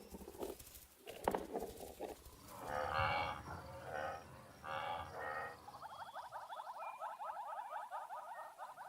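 Large grazing animals calling: three drawn-out, moo-like calls a second or so apart, then a fast rattling trill that keeps up through the last few seconds.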